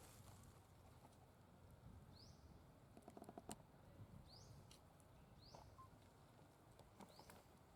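Near silence: faint outdoor ambience with short, high, rising chirps every second or two and a few light clicks.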